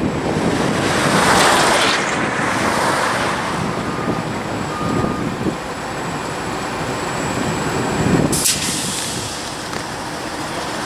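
NR-class diesel-electric locomotive idling amid road traffic noise, with a passing vehicle swelling and fading in the first few seconds. A short sharp hiss of air comes about eight seconds in.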